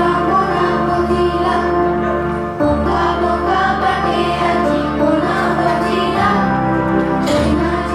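Children singing a song in Odia over instrumental backing music.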